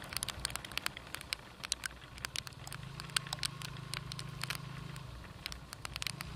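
Raindrops tapping irregularly on the microphone during a motorcycle ride, over a low engine hum that is strongest from about three to five seconds in.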